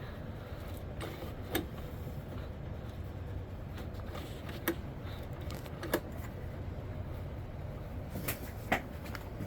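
Scattered light clicks and taps of hand work on a small ATV engine during reassembly, over a steady low background hum.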